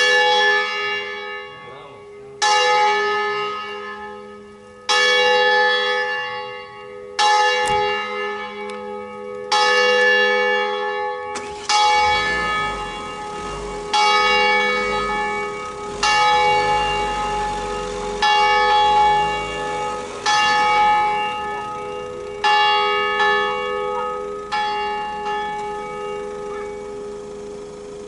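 Smallest bell of a five-bell church peal, cast by Roberto Mazzola, swinging in full circle. Its clapper strikes about once every two and a half seconds, each stroke ringing out and fading. Near the end the strikes stop and the last ring dies away.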